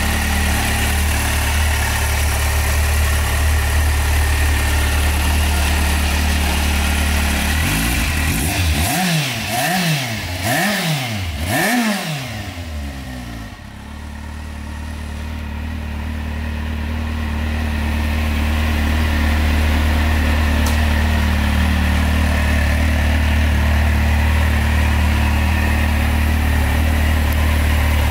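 Kawasaki Z750's inline-four engine idling steadily. A little under halfway through, the throttle is blipped about four times in quick succession, each rev rising and falling, before the engine settles back to idle.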